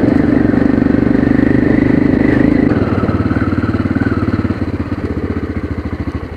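Aprilia Pegaso 650 Cube's single-cylinder engine pulling steadily under throttle on a dirt trail. About three seconds in the throttle eases off and the engine note drops, fading quieter as the bike slows.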